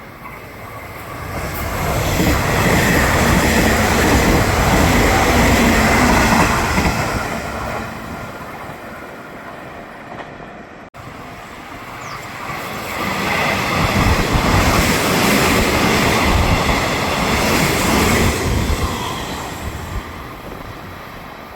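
A Nishitetsu Tenjin-Ōmuta Line electric train passing at speed, growing louder and then fading. After a cut about halfway through, a second train passes the same way.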